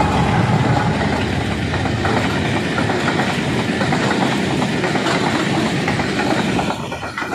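Freight train's covered wagons rolling past close by: a steady heavy rumble of steel wheels on rail, with clickety-clack over the rail joints.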